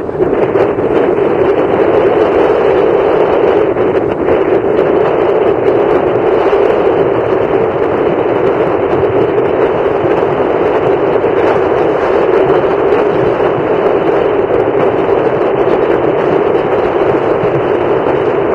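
Steady, loud wind rushing over the microphone.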